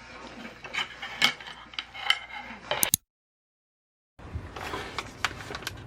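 Tableware clinking and clicking: sharp, irregular knocks of utensils against dishes, several with a brief ring. The sound cuts off dead about halfway through and, after about a second of total silence, picks up again with softer clicks and knocks.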